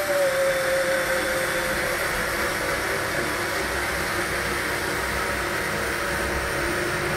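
Countertop jug blender running continuously, puréeing cooked lentils with onion and garlic into a thick soup. Its motor whine sags slightly in pitch during the first couple of seconds as it takes the load, then holds steady.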